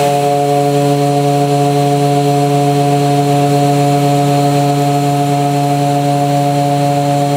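Heller CNC machine power skiving a large gear: the tool and workpiece spindles spin fast in sync as the tool cuts dry, without coolant, giving a steady hum at one constant pitch.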